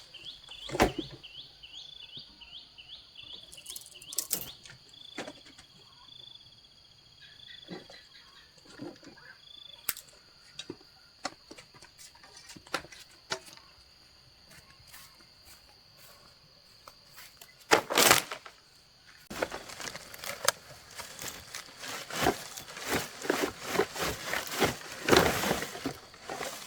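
Outdoor ambience: a bird chirps quickly and repeatedly in the first few seconds over a steady high insect drone. Scattered knocks follow, then one loud knock about two-thirds through and a busy run of irregular knocking and clattering near the end.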